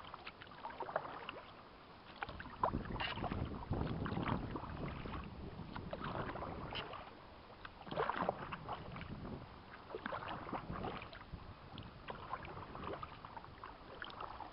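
Kayak paddle strokes: the blades dipping and splashing in the water at an irregular pace, with water dripping from the paddle between strokes.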